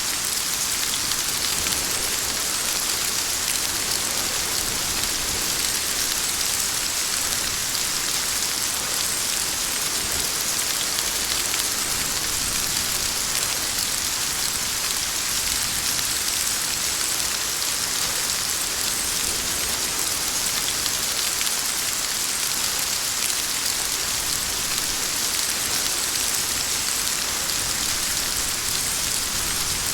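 Steady heavy rain pouring, an even hiss of many drops falling on a surface, with no thunder.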